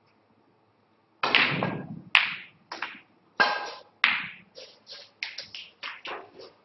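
Snooker shot: a loud sharp knock as the cue strikes the cue ball, then a run of sharp clicks and knocks as the balls collide and strike the cushions, growing quieter and closer together as a red is potted.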